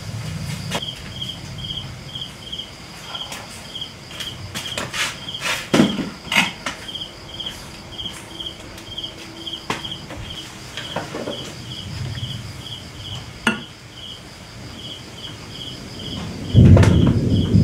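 Insect chirping: a short high call repeated evenly about three times a second. A few sharp knocks sound in the middle, and a loud low rumble comes in near the end.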